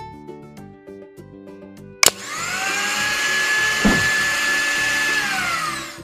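Miniature electric blender switched on with a click about two seconds in, its small motor whining up to speed and running steadily as it purées fruit chunks, then winding down near the end. Background music plays throughout.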